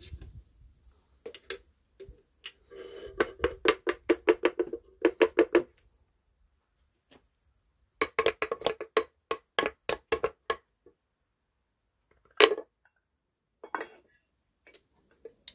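Quick runs of metallic knocks with a ringing tone, several a second, in two runs and then one loud knock near the end: a graphite ingot mold, held upside down in tongs, being knocked against a concrete block to free a freshly cast ingot.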